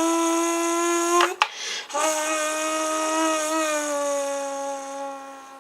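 A person's voice humming and buzzing into an empty drink can, imitating a car engine: a steady buzzy drone, a short break, then a second drone that slowly drops in pitch and fades near the end.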